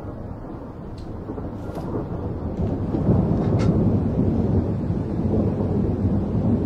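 Deep rumbling noise that swells about three seconds in and stays loud, with a few faint clicks in the first seconds.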